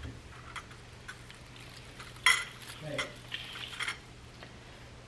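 Small objects being handled: scattered light clicks and short scrapes, with one sharp click about two seconds in, over a faint steady hum.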